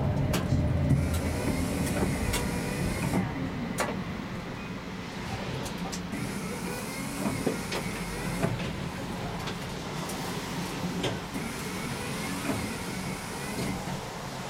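A tram heard from its driving cab, slowing to a stop: the running noise eases off over the first few seconds. The standing tram then gives a steady low hum, scattered sharp clicks, and a hiss that comes and goes in stretches of two or three seconds.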